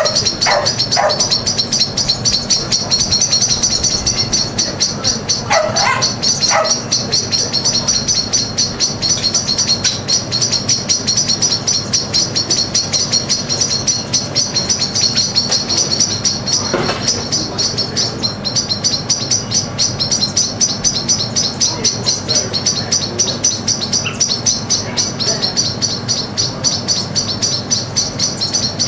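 Many small birds chirping together in a dense, continuous chorus of rapid high chirps. A few louder, lower sweeping calls stand out about half a second in, around six seconds in and around seventeen seconds in.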